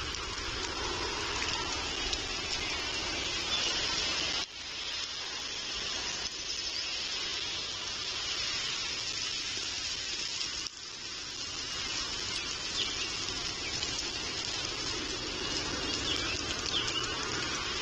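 Steady hiss of rain falling, picked up by an outdoor nest-camera microphone. It breaks off abruptly twice.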